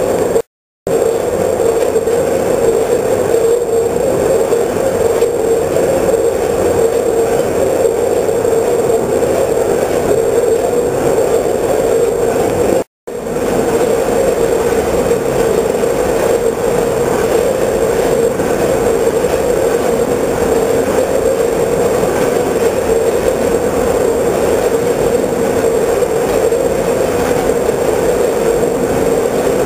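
10-head multihead weigher running with sweets loaded: a steady mechanical hum. It cuts to silence briefly twice, once about half a second in and once near the middle.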